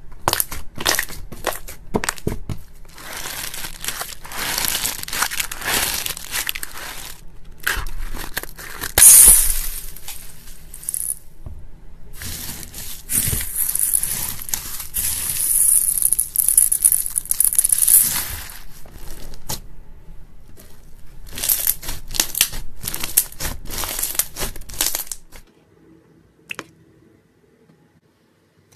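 Slime being pressed, slapped and squished by hand, a dense run of sticky crackles and clicks in several stretches. It stops abruptly near the end.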